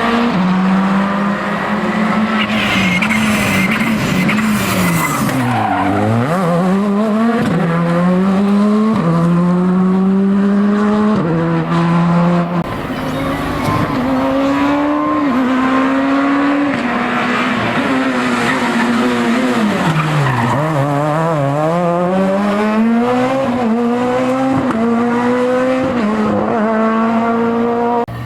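Rally car engine at full effort. The revs fall steeply as the car brakes and downshifts for a corner about six seconds in, then climb again through a quick run of upshifts. The same pattern repeats about twenty seconds in.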